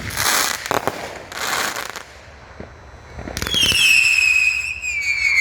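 200-gram consumer fireworks cake (Heavyweight Fireworks' Top Rope) firing. Two bursts of hissing crackle come in the first two seconds, and from about three and a half seconds a loud whistle slowly falls in pitch.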